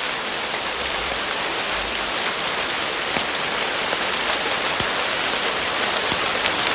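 Steady rain falling on rainforest foliage: an even hiss with faint scattered drop ticks.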